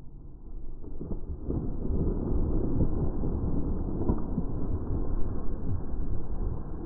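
Steady rumbling noise of wind and brushing movement on the microphone as a hunter pushes through tall dry prairie grass, growing louder about a second and a half in.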